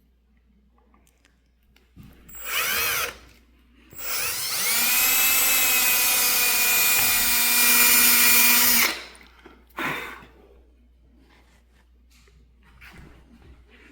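Electric drill running in short bursts: a brief spin-up about two seconds in, then a run of about five seconds whose whine climbs to speed and holds steady before stopping abruptly, then a quick blip near the ten-second mark.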